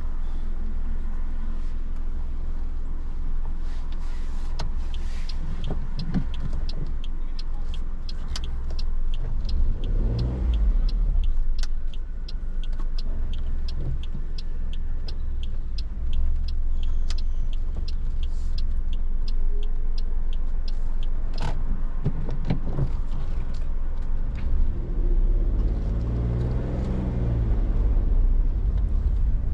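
Inside a moving car's cabin: a steady low rumble of engine and tyres at low speed, with a long run of evenly spaced clicks through the middle. The engine note rises and falls briefly about ten seconds in and again near the end.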